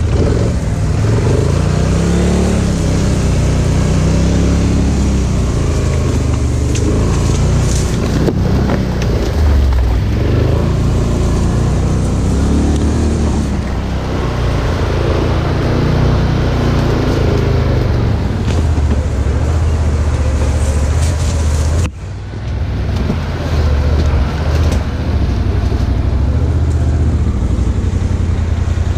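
Polaris Sportsman 1000 ATV's twin-cylinder engine running under load while riding off-road, its revs rising and falling every few seconds as the throttle is worked over rough ground. About two-thirds of the way through the sound briefly drops away, then the engine picks up again.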